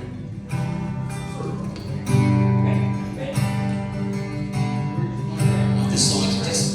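Instrumental intro of a worship song: acoustic guitar strumming sustained chords, restruck every second or two, with a bright high shimmer swelling in near the end.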